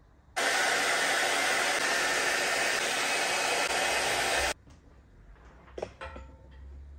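Handheld electric heat gun blowing hot air steadily for about four seconds, switched on and off abruptly, then a few light clicks of handling.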